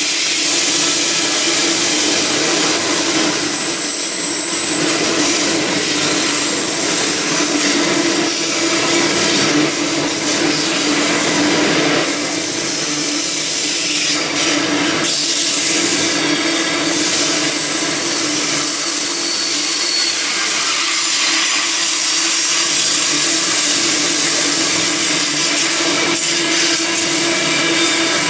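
Grain hopper wagons of a freight train rolling past: the steady rolling noise of steel wheels on the rails.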